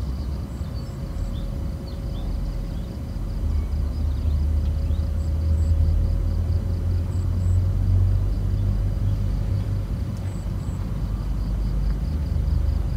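Outdoor ambience dominated by a low, uneven rumble that swells through the middle. A steady faint hum, a fast pulsing high trill and a few short high chirps in pairs sit above it.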